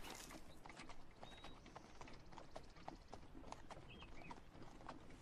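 Faint clip-clop of horse hooves, a quick run of light clicks with no let-up.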